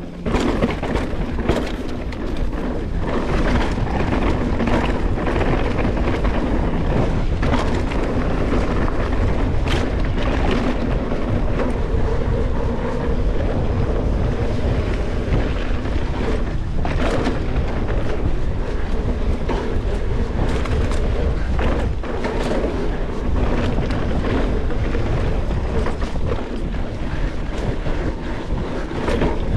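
Mountain bike riding fast down dirt singletrack: steady wind rush over the camera microphone and tyres running on dirt, with the bike rattling and sharp knocks from bumps in the trail.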